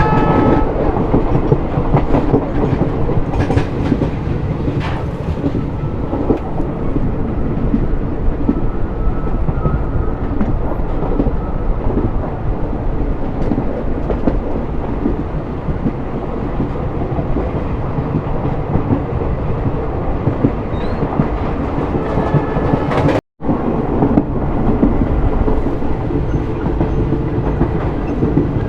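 A diesel-hauled express train running at speed, heard from on board: the steady noise of the wheels on the rails and the running coaches. The locomotive's horn sounds at the start and cuts off about half a second in, and the sound drops out for an instant near the end.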